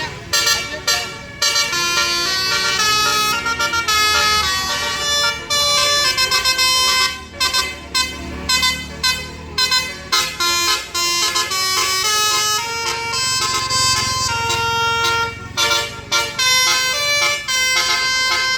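Bus-mounted Basuri musical horn playing a melody, a quick run of short notes broken by brief gaps, mixed with some longer held notes. A low rumble sits underneath in places.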